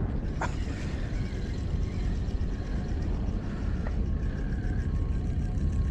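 A boat engine running steadily at idle, a low continuous rumble with a faint steady whine above it. Two light clicks come through, about half a second in and about four seconds in.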